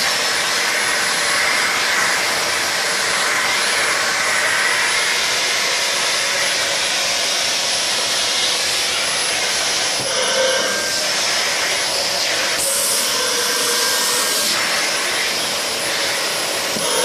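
Vacuum cleaner running steadily with a thin high whine, its nozzle drawn over a puppy's thick fur.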